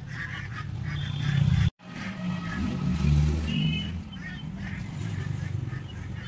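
Low rumble of motor vehicle engines, with a couple of short horn toots above it. The sound cuts out for an instant just before two seconds in.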